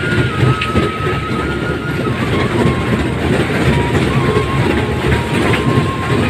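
Fairground ride train's cars rumbling and clattering along their track. Over it, a thin high tune steps between a few notes.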